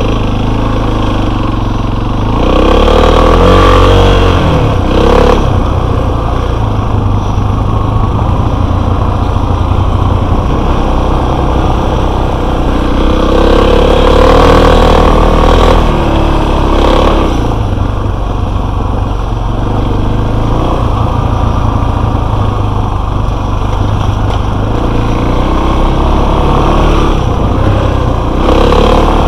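Enduro motorcycle engine running under way, its revs rising and falling with the throttle, with louder revving surges a couple of seconds in and again about halfway through.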